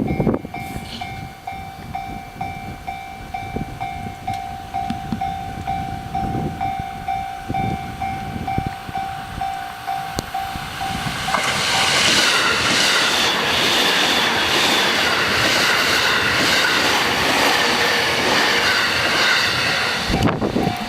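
Japanese level-crossing alarm ringing with a steady, repeating electronic ding. About eleven seconds in, an electric local train passes over the crossing, its running noise loud enough to cover the bell until it falls away just before the end.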